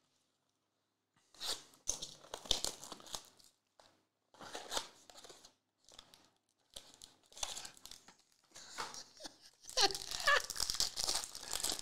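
Hands handling and opening a small cardboard trading-card box, in short rustling bursts. Then, from about ten seconds in, a foil card pack is torn open and its wrapper crinkles continuously.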